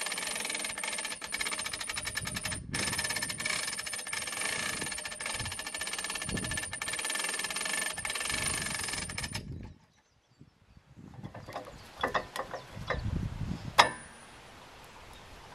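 Hand-cranked cable winch ratcheting in a fast, steady run of clicks as it drags a log onto a sawmill bed, with a short break partway through. Near the end come a few separate knocks and one sharp metal clank as the log is handled on the steel bed.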